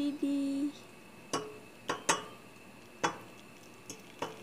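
A handful of short, sharp clicks and clinks, about five spread over three seconds, as a black thermos flask is tipped over a ceramic bowl to pour hot water onto instant oatmeal.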